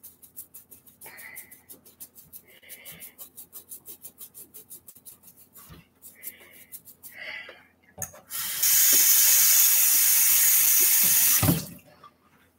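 A toothbrush scrubs a reborn doll's vinyl head in quick short strokes, about six a second. Then a kitchen tap runs loudly for about three seconds as the head is rinsed, and stops suddenly.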